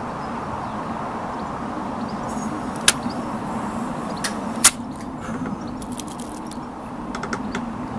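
Two sharp clicks from an SMK SX78 CO2 air rifle, about three and nearly five seconds in, the second louder. Lighter clicks and rattles follow as pellets are picked from a tin, over a steady background hum.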